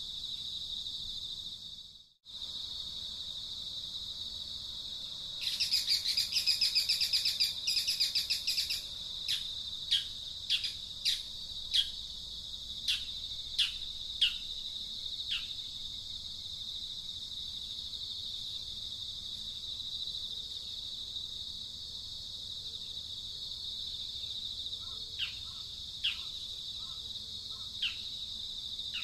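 Outdoor insect and bird ambience: a steady high insect drone throughout, a loud rapid pulsing trill for about three seconds, then a scatter of short, sharply falling bird chirps.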